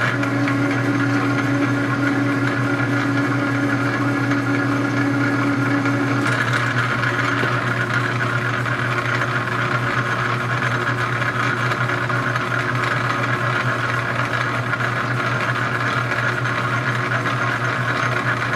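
Metal lathe running steadily with a rifle barrel spinning in it: an even mechanical hum with a steady higher tone that drops out about six seconds in.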